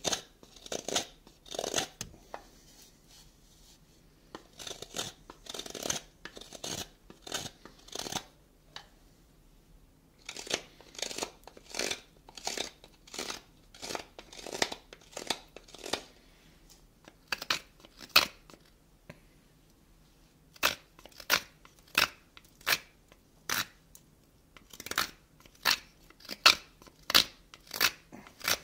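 A carving knife shaving wood as a half of a small wooden horn is hollowed out: short cutting strokes in quick runs with brief pauses, sharper and crisper in the later part.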